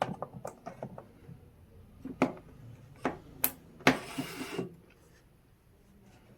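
Scattered clicks and knocks of a hot glue gun and small parts being handled on a work surface, the sharpest about two, three and four seconds in, with a brief rustle just after the last knock.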